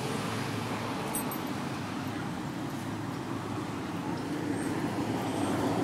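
Steady low background rumble with no distinct events, and a faint high click about a second in.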